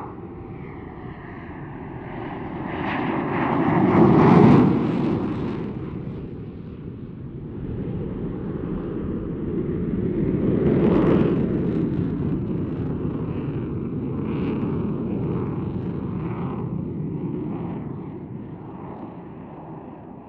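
Eurofighter Typhoon's twin Eurojet EJ200 turbofans in a display pass, a loud rushing jet roar. It swells to its loudest about four seconds in, dips, then builds again around eleven seconds as the jet climbs with afterburners lit, and slowly fades away.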